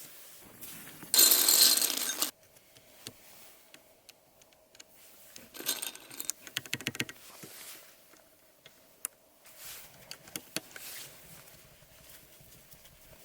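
Small plastic clicks of mechanical keyboard parts being pressed into place, with a quick run of clicks about six seconds in and scattered single clicks later. A loud burst of noise lasting about a second comes about a second in.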